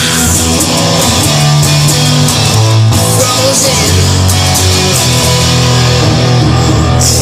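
Loud guitar-led rock music, an instrumental passage with no singing, over a steady bass line and cymbals.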